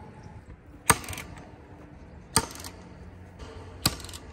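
Cordless Milwaukee fence stapler driving staples into wooden fence posts: three sharp shots about a second and a half apart, each with a short rattle after it.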